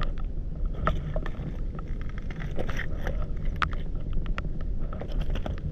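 Footsteps on wet stones and broken brick and pottery shards, giving irregular clicks and clacks, over a steady low rumble of wind on the microphone.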